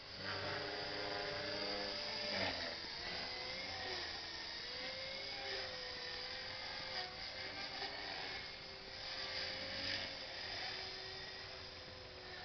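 Align T-Rex 450 SE electric RC helicopter in flight: a whine from its motor and rotors whose pitch wavers as it manoeuvres, with louder swells of rotor noise about two and a half and ten seconds in.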